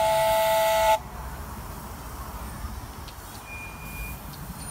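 Miniature steam locomotive's whistle blowing, holding two notes at once over a steam hiss, then cutting off suddenly about a second in. After that the locomotive runs on quietly as it pulls away, with a few light clicks.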